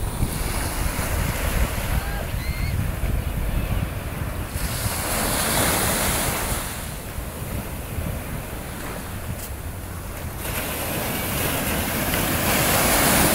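Ocean surf breaking and washing up the beach, with wind rumbling on the microphone. The wash swells loudly about five seconds in and again near the end.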